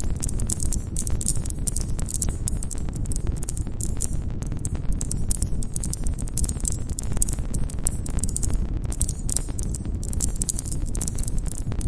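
Wood campfire crackling steadily: a dense, unbroken run of small sharp pops and snaps over the low rumble of the burning fire.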